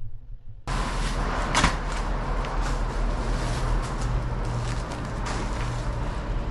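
Close rustling and clattering handling noise with scattered clicks and a sharp knock about a second in, starting abruptly just under a second in.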